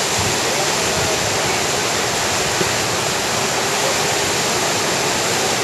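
Steady rush of whitewater rapids churning through a concrete slalom channel.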